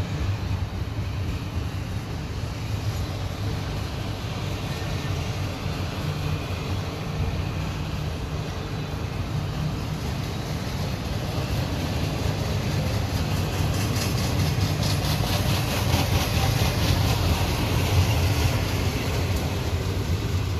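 Double-stack intermodal freight train's well cars rolling past at close range: a steady low rumble of steel wheels on rail. It grows louder in the second half, with a rapid run of clicking wheels.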